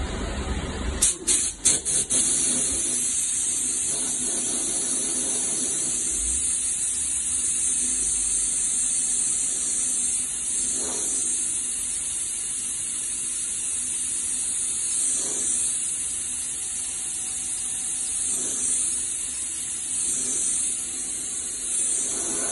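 Steady, high-pitched hiss of compressed air, typical of a pneumatic body-shop tool or air line, with a few quick clicks about a second in and short dips in the hiss now and then.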